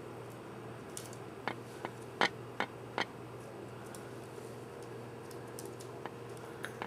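Five short, sharp clicks or taps, bunched between about one and a half and three seconds in, over a steady low hum.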